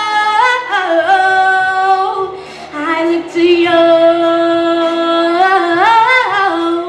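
A young female vocalist singing through a handheld microphone, holding long, ornamented notes in two phrases with a short dip about two and a half seconds in.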